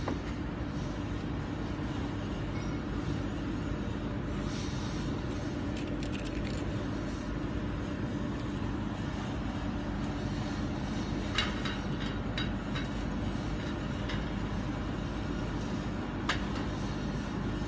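Steady low rumble with a faint hum. A few light clicks about two thirds of the way through and once more near the end: metal heater cores knocking together as they are handled.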